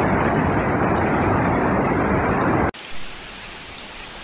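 Loud, steady rush of floodwater. About two-thirds of the way in it cuts off suddenly to a quieter, even hiss of water.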